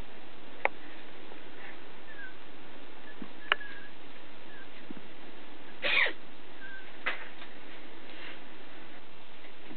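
A woman sneezes once, a short noisy burst about six seconds in, over a steady hiss. A few sharp clicks come before and after it.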